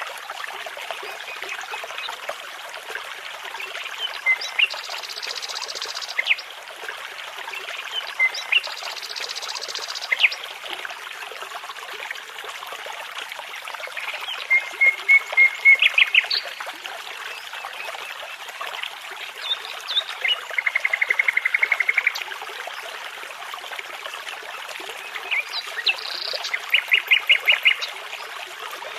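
Nightingale song over a steady babbling brook. Phrases come every few seconds: high buzzy phrases, and rapid trills of evenly repeated notes, which are the loudest sounds.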